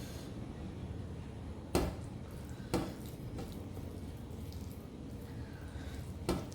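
Close-miked eating sounds of rice and mutton curry: wet chewing and mouth noises with three sharp smacks or clicks, over a steady low hum.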